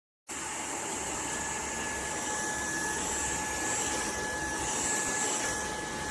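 UNINELL UV3 cordless stick vacuum running steadily: a rushing airflow noise with a steady high motor whine. It starts abruptly just after the beginning.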